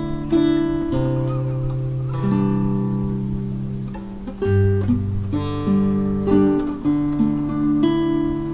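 Acoustic guitar music: plucked and strummed chords over held bass notes, the chord changing every second or so.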